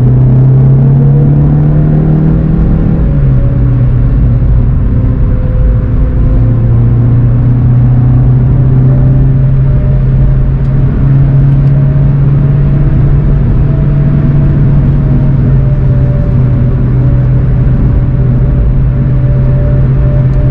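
2019 VW Golf 7 GTI TCR's turbocharged four-cylinder engine, heard from inside the cabin, pulling hard under acceleration with its pitch rising. About three seconds in, a quick DSG upshift drops the pitch, and the engine then holds a fairly steady note at speed.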